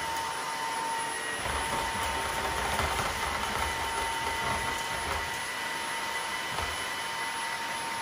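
TAB T6 Pro cordless wet-dry vacuum mop running with a steady high motor whine and airflow hiss while its wet roller head is pushed over a sticky food spill. Uneven low rumbling comes in for a few seconds in the middle as the head passes over the mess, with a shorter one near the end.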